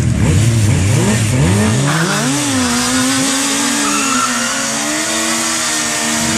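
Sport motorcycle engines revved in quick up-and-down blips, then one rises about two seconds in and holds at high revs as its rear tyre spins in a smoking burnout.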